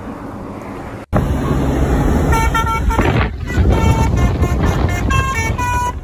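Steady highway traffic noise, then after a brief break a loud truck engine rumble with a telolet horn playing a quick tune of short notes at changing pitches, starting about two seconds in.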